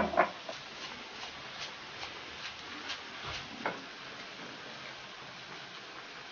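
A sharp clink as a ceramic salt pot is set down on a shelf, then a string of faint, evenly spaced ticks over a low steady hiss, with one more knock a little over halfway through.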